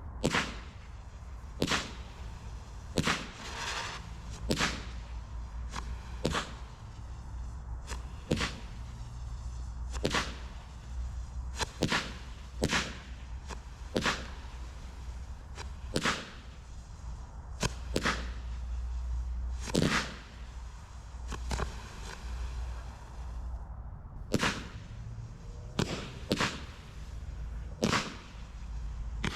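Low-noise 16-shot firework barrage cake firing, a sharp pop about once a second with a short gap about three-quarters of the way through.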